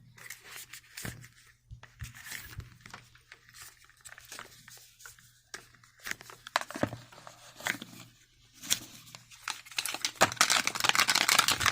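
Packaging wrap being crinkled and torn open by hand to free the watch's wireless charging cable: scattered crackles and clicks, turning into steady crinkling near the end.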